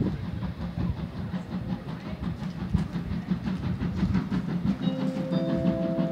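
Steam locomotive hauling a passenger train away with a repeated low rumble of exhaust beats and rolling coaches. A steady whistle tone comes in about five seconds in.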